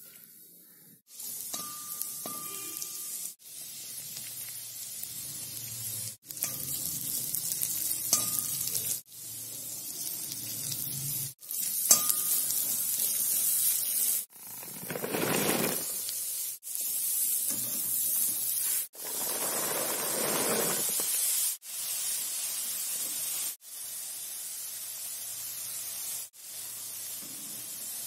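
Chopped garlic, green chillies, then onion and carrot sizzling as they fry in hot ghee in a pan, stirred with a spatula that now and then clinks on the pan. The sizzle breaks off abruptly and starts again every two or three seconds.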